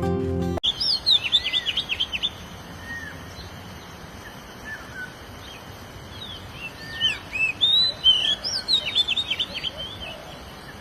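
A songbird calling in two bouts of rapid, high, sweeping chirps, about a second in and again from about seven seconds in, over a steady background hiss.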